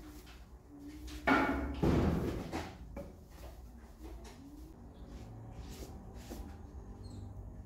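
Household handling noises while dusting a table and laying a cloth runner on it: scattered light knocks and rustles, with a louder burst of noise about a second and a half in.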